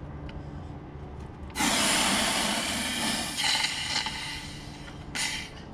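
Compressed CO2 left in an airsoft lever-action rifle's cartridges escaping with a loud hiss as the cartridge cap is unscrewed. The hiss starts suddenly about a second and a half in and fades over the next two seconds or so. A second short hiss comes near the end.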